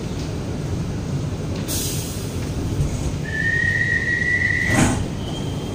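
Guangzhou Metro Line 18 train standing at a platform over a low rumble. A short hiss comes first, then a steady high door warning tone lasts about a second and a half. It ends in a clunk as the doors release to open.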